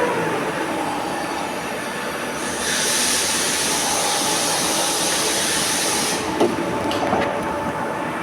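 Five-axis CNC milling machine running with a steady mechanical noise and a faint held tone. A hiss comes in about two and a half seconds in and stops about six seconds in, followed by a short knock.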